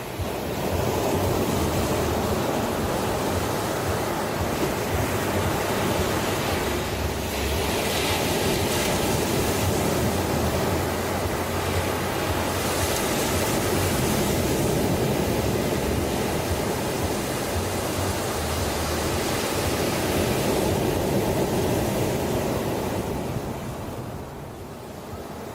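Ocean surf washing on a shore: a continuous rush of waves that swells brighter about a third of the way in and again around the middle, then eases off near the end.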